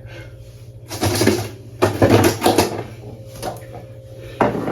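Frozen items and plastic bins being handled and moved in a freezer, clattering and rattling in two short bouts about a second and two seconds in.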